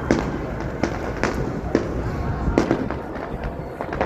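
Fireworks bursting in an irregular run of sharp bangs, about seven in four seconds, over a continuous low rumble.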